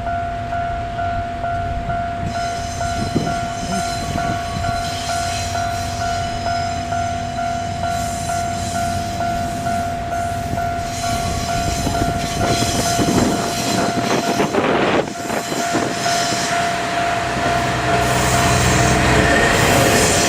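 Level-crossing warning alarm sounding in a steady repeating pattern over the running of a DE10 diesel-hydraulic locomotive, the train noise growing louder over the last few seconds as the train draws near.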